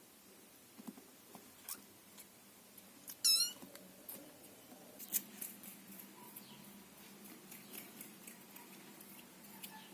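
Scottish Fold kitten giving one short, high-pitched, wavering mew about three seconds in, among scattered faint clicks and taps.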